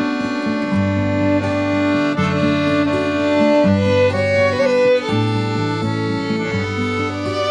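Instrumental background music: held melody notes over a shifting bass line.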